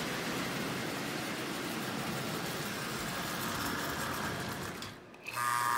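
Marx 994 toy train locomotive with a single-reduction motor running on tinplate three-rail track, a steady mechanical whirr. About five seconds in the sound cuts out for a moment and comes back as a buzz with a steady hum: the locomotive now running in reverse, which it does noisily.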